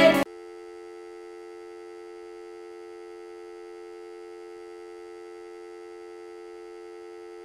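Hold music cuts off just after the start, then a telephone dial tone: a steady, unbroken two-note hum, the sign that the line has gone dead and the call has been dropped.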